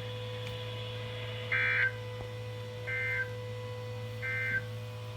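EAS end-of-message signal from a NOAA Weather Radio broadcast: three short bursts of warbling SAME data tones, about a second apart, marking the end of the flash flood warning. A steady low hum from the radio runs underneath.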